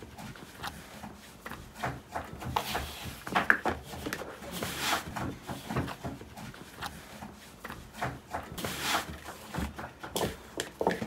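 Hands kneading a large batch of shaggy samsa dough in a metal basin: irregular squishing, rubbing and scraping against the bowl, with louder rustling pushes about five and nine seconds in.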